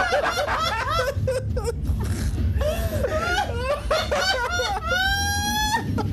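Several men laughing hard in quick, high-pitched bursts, with one long high-pitched squeal of laughter about five seconds in.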